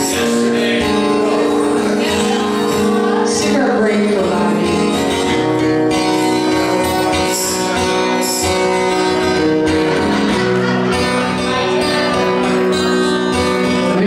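Live acoustic music: an acoustic guitar playing with a woman singing, held notes and a downward slide about four seconds in.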